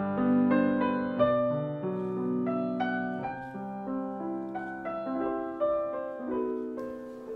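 Background piano music, a slow run of held notes.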